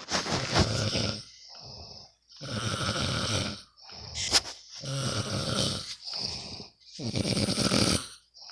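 A sleeping person snoring: four loud snores about two seconds apart, each followed by a quieter breath, with a brief sharp click about four seconds in.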